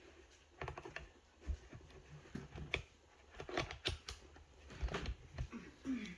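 Irregular clicks and knocks of a hand pipe crimping tool being worked onto a pipe fitting. A short falling whine comes near the end.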